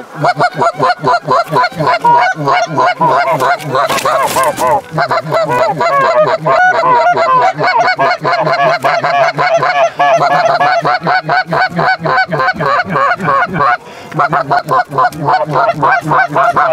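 Canada goose calls blown rapidly by hunters: a fast, loud run of honks and clucks, several a second, calling to a small group of Canada geese, with one brief pause near the end.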